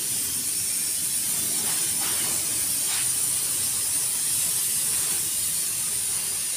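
High-pressure water jet from a pressure-washer wand spraying onto a van's windscreen and roof: a steady hiss of spray.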